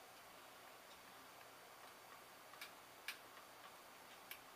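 Faint steady hiss of a hot-air rework pencil blowing on a circuit board, with three light clicks in the second half as a metal tool prods and pries at a softening plastic socket whose pins won't come free.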